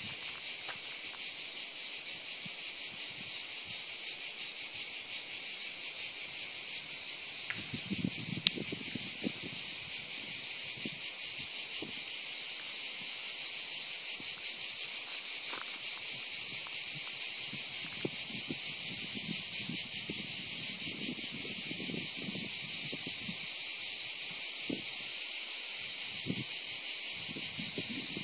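A dense, unbroken chorus of insects singing in the pine trees, a high-pitched hiss-like whirr.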